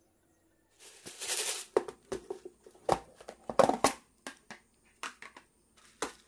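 Plastic food container being handled and set down: a short rustle about a second in, then a string of irregular sharp clicks and knocks.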